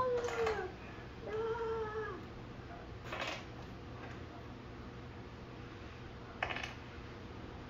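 Two drawn-out vocal calls in the first two seconds, each rising then falling in pitch. Later come two short clicks of Lego bricks being handled on a wooden table.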